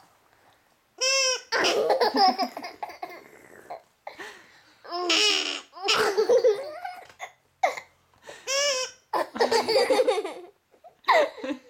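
Baby laughing in several bursts of high-pitched giggles and squeals, with short pauses between.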